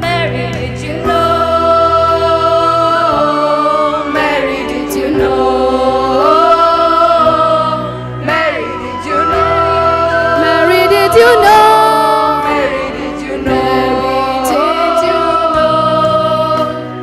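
School choir singing long held notes in harmony, with slides between pitches and no clear words, over a steady low held accompaniment.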